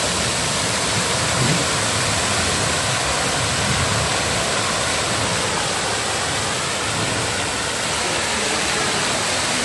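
Large fountain splashing: a tall water spout and jets falling and crashing into the basin, a steady rushing splash.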